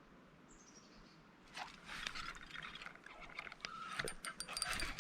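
Water splashing with sharp clicks mixed in, starting suddenly about a second and a half in after a quiet start and going on irregularly.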